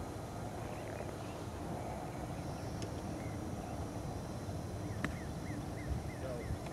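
Steady low outdoor background rumble. About five seconds in comes a single sharp click of a golf club chipping the ball, followed at once by a bird calling a quick run of short descending chirps, several a second.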